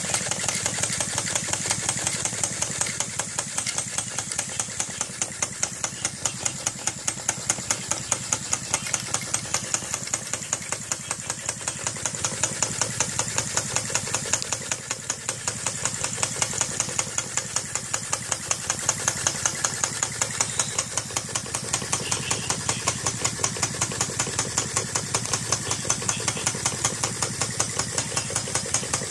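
Handmade brass vacuum-operated model engine running steadily, with a fast, even knocking of its strokes, several a second, over a steady high hiss.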